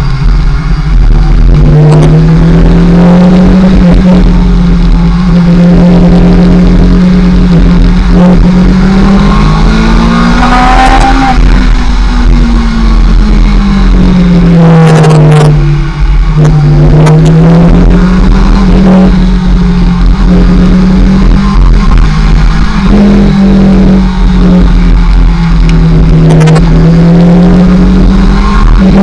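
Kawasaki ZX-6R's inline-four engine heard from on the bike while riding, its pitch climbing and falling with throttle and gear changes, with a brief break about sixteen seconds in. A heavy low rumble of wind on the microphone runs under it.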